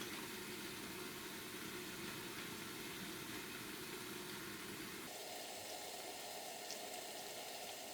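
Tortilla chips in red chile sauce simmering in a frying pan: a soft, steady sizzling hiss, whose tone shifts abruptly about five seconds in.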